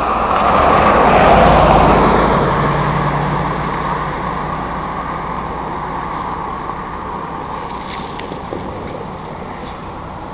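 A road vehicle passing: a loud rush of engine and road noise with a low hum that swells over the first two seconds, then slowly fades away.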